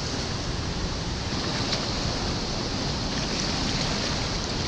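Rushing water of a high, fast-flowing river: a steady, even rushing noise.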